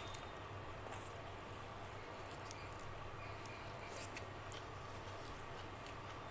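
Faint wet clicks of rice and dal being mixed and squeezed by hand on a steel plate, then eaten from the hand, with the loudest mouth sound about four seconds in. A low steady hum runs underneath.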